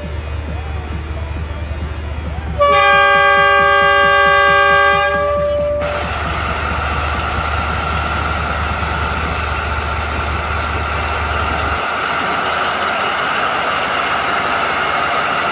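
A toy train's horn sounds one long multi-note chord for about three seconds, over a low steady hum from the running model train. After the horn stops, a steady even rushing noise carries on.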